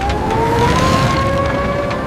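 Deck winch whining as it spins up under load, its pitch rising over the first half second and then holding steady, over a low rumble of machinery.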